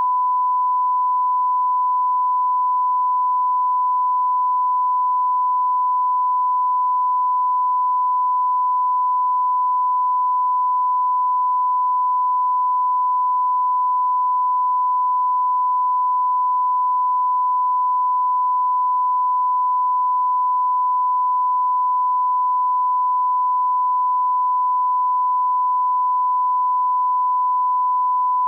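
Censor bleep: one unbroken, steady beep tone at a single pitch, standing in for swearing.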